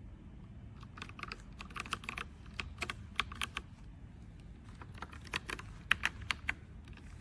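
Typing on a Meta K108 mechanical keyboard: irregular clusters of key clacks, starting about a second in and stopping shortly before the end.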